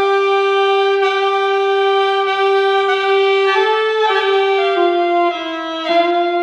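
A single reed woodwind instrument plays a slow melody in long, held notes. The first note is sustained for about three and a half seconds, then the tune steps between a few nearby pitches.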